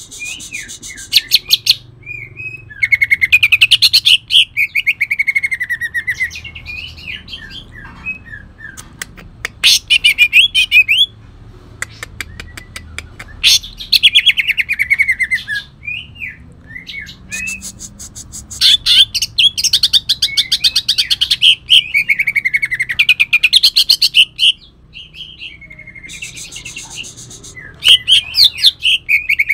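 Cucak ijo (green leafbird, Kalimantan type) singing in loud, repeated bursts of harsh, rapid-fire song: fast rattling trills and chattering notes with swooping phrases between them. The song is mixed with mimicked long-tailed shrike (cendet) calls.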